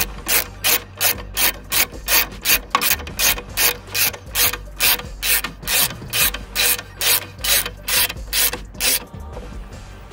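Socket ratchet clicking in quick back-and-forth strokes, about three a second, running a 10 mm bolt back in on the bottom of the coolant expansion tank. The strokes stop about nine seconds in.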